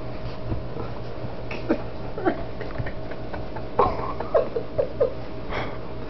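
A dog makes short whines and grunts while humping a person's leg: a few scattered ones, then a quick run of them about four seconds in, over a steady low hum.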